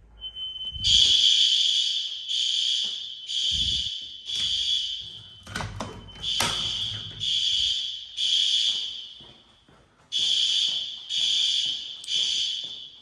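Building fire alarm system sounding after a manual pull station is activated: a high-pitched alarm tone in repeated short pulses, a little more than one a second, with a brief break near ten seconds in. A few low knocks come in between.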